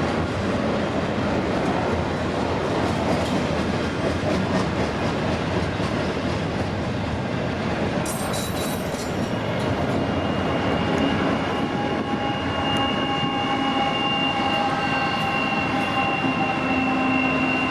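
A CPKC intermodal container train's freight cars rolling past with a steady rumble of wheels on rail and a few clicks over the rail joints. A steady high whine comes in about halfway through and stays to the end.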